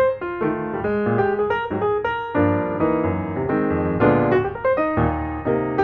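Background piano music: a melody of separate notes over lower sustained chords.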